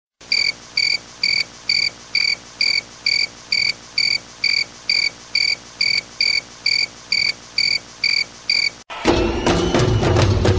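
Cricket chirping in a steady, even rhythm, about two short chirps a second on one pitch. Near the end the chirping stops and percussive music with knocking beats begins.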